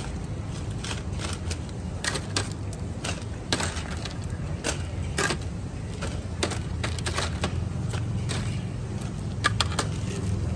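Metal tongs clicking and scraping against a steel serving tray of fried bananas, a dozen or so irregular sharp clicks, over a steady low rumble of street traffic.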